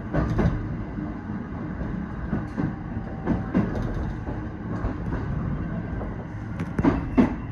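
Electric train running along the rails, heard from inside near the front: a steady low rumble with sharp clacks as the wheels cross rail joints, a few spread through and a loud cluster near the end.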